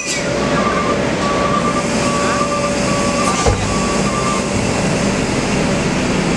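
Kobelco SK200 hydraulic excavator's diesel engine and hydraulics working steadily as the bucket digs hot asphalt mix out of a dump truck bed and lifts it, with an on-off high whine during the first few seconds and a single low thump about three and a half seconds in.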